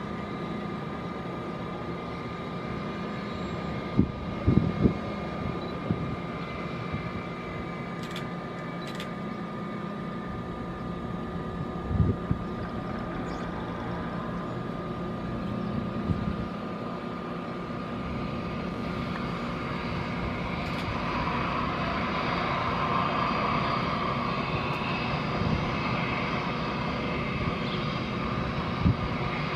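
Airbus A319 jet engines running at taxi power, a steady whine with a held tone that grows louder in the second half as the airliner turns onto the runway. A few dull low thumps break in near the start and again about a third of the way in.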